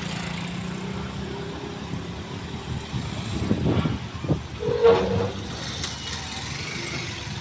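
Motorcycle engine running as a motorbike rides down the ferry's ramp and passes close by, over a steady low hum of vehicle engines. A short horn toot about five seconds in.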